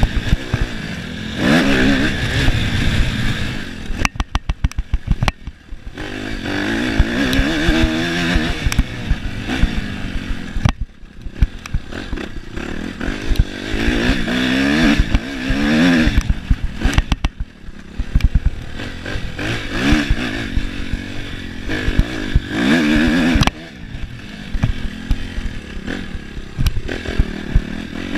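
Suzuki RM-Z four-stroke single-cylinder motocross bike engine, heard from on board, revving up and dropping off again and again as the throttle is rolled on and off. It is cut back a few times to a rapid putter, most clearly about four seconds in.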